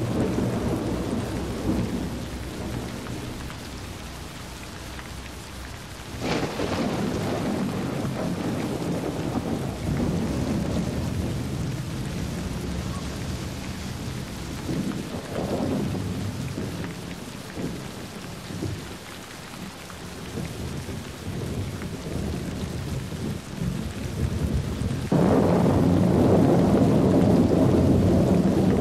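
Heavy rain and running floodwater: a steady low rushing noise with no pitch, which jumps louder about six seconds in and again near the end.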